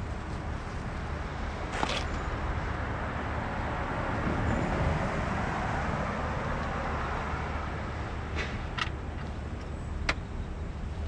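Street traffic noise with a vehicle passing, swelling and fading in the middle, and a few sharp metallic clicks.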